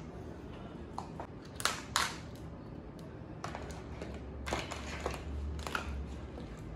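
Blue crab shells and legs clicking and knocking against a plastic cutting board as the crabs are picked up and set down: scattered taps, the loudest about two seconds in. A low steady hum sits underneath.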